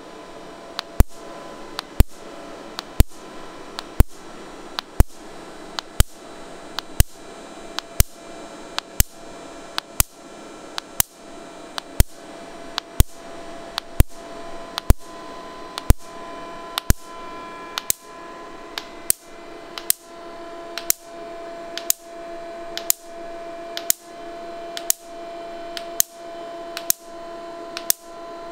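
Er:YAG laser pulses ablating a bone sample: sharp snaps at a steady rate, a loud one about every second with fainter ones between, over a steady equipment hum whose tones grow stronger in the second half.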